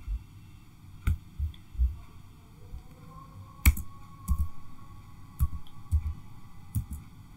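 Scattered clicks and taps of a computer mouse and keyboard, with one sharper click about halfway through.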